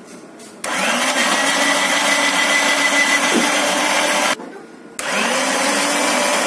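Electric meat grinder's motor driving its vegetable-slicer drum as an onion is pushed through. The motor starts with a quick rising whine about half a second in, runs steadily, cuts off about four seconds in, and starts again a moment later.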